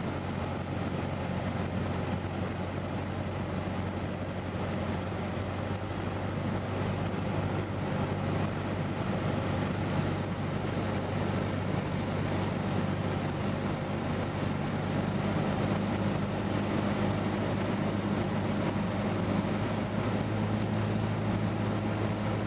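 Cessna 152's four-cylinder Lycoming O-235 engine and propeller droning steadily in flight, with airflow noise.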